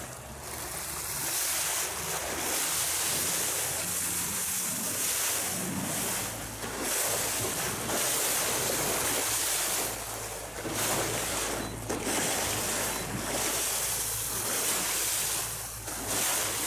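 Boat running under way: water rushing and spraying off the bow wave along the hull, with wind on the microphone and a steady low engine hum underneath.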